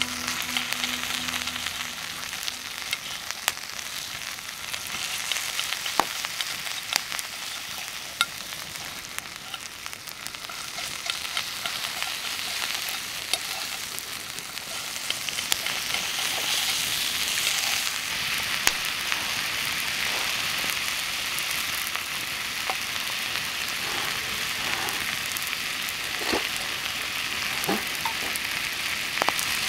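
Sirloin steak sizzling in a hot cast-iron skillet, with scattered sharp pops and crackles, growing a little louder about halfway through.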